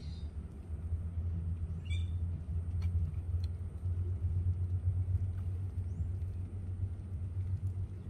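A steady low rumble, with faint short bird calls over it: one at the start and a squawk with several stacked notes about two seconds in.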